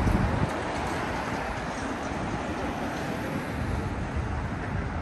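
City street ambience: a steady traffic rumble with wind buffeting the microphone, strongest in the first half second.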